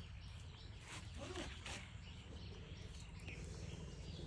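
Faint outdoor background: a steady low hum with a few faint short animal calls and light clicks.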